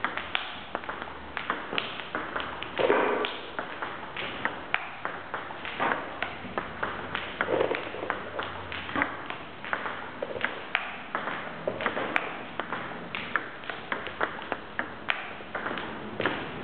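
Table tennis ball being struck by rubber bats and bouncing on the table in a fast training rally: a steady run of sharp clicks, two or three a second.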